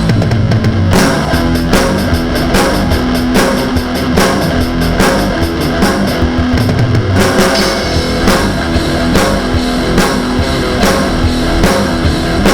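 Background rock music with distorted guitar and a steady drum-kit beat.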